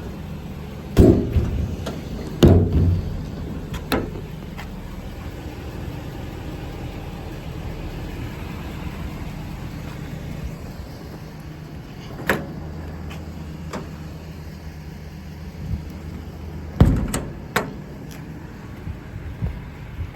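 A series of sharp knocks and slams, the loudest about a second in, again about two and a half seconds in, and a quick cluster near the end, typical of metal compartment doors and latches on a truck service body being opened and shut. A steady low hum runs underneath.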